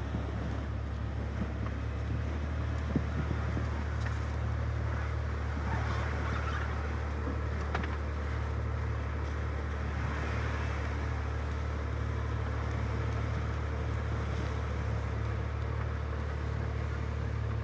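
Off-road 4x4's engine running with a steady low drone.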